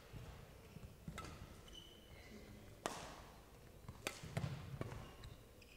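Badminton rally: sharp cracks of rackets striking a shuttlecock, roughly one to two seconds apart, the loudest about three seconds in, with thudding footwork on the court.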